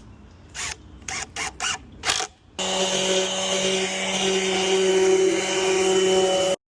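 Several short, sharp hissing bursts, then a power tool's motor running steadily for about four seconds before cutting off suddenly.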